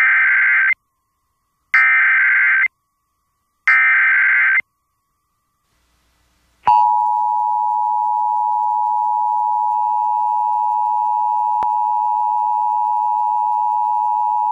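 Emergency Alert System SAME header sent three times: three buzzy bursts of digital data tones, each about a second long and about two seconds apart, encoding the 911 Telephone Outage Emergency alert. About two seconds after the last burst comes the EAS attention signal, a steady two-tone beep held for about eight seconds that cuts off sharply.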